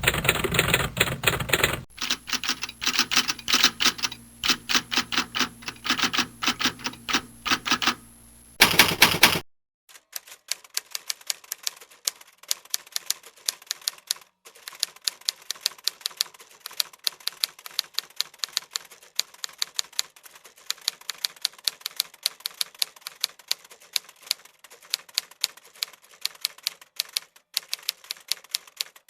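Typewriter keys striking in quick, irregular runs of clicks. For the first nine seconds or so the strikes are louder and denser over a low hum, then they continue quieter and cleaner at about three to five strikes a second.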